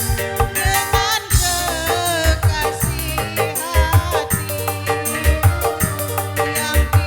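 Live dangdut music from an orgen tunggal (single electronic keyboard) performance: a kendang-style drum pattern and shaker under a bending melody line, playing continuously at full level.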